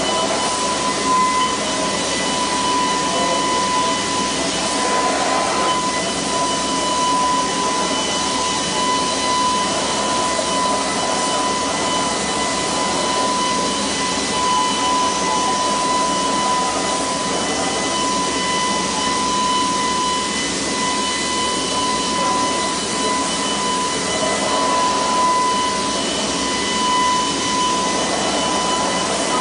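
Ransburg RMA rotary bell atomizer with indirect-charge electrodes, its air turbine spinning the bell while it sprays waterborne paint onto a bumper fascia. It makes a steady high whine over an even rush of air, swelling slightly now and then as the robot arm sweeps.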